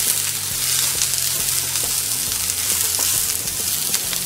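Diced vegetables sizzling in oil in a nonstick kadai over a high gas flame while a spatula stirs them. A steady frying hiss runs throughout, with small scrapes and taps of the spatula against the pan.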